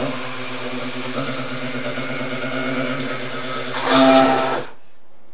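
Immersion blender running in a bowl of oils and lye water, mixing raw soap batter toward trace. It hums steadily, grows louder for a moment about four seconds in, then cuts off.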